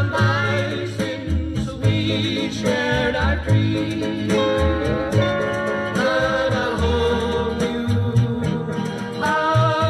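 A song played back through JBL E100 loudspeakers and picked up by a condenser microphone: a singer holds wavering notes with vibrato over a steady bass line.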